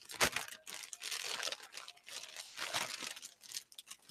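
Black plastic mailer bag crinkling in irregular bursts as it is handled and opened by hand.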